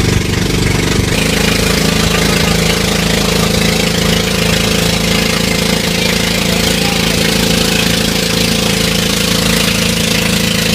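Engine of a motorized outrigger bangka running steadily under way, its tone shifting once about a second in.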